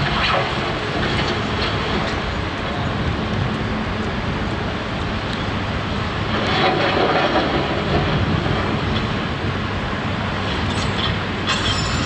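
Construction machinery running steadily: diesel engines with a low rumble and occasional short knocks, swelling a little about seven seconds in.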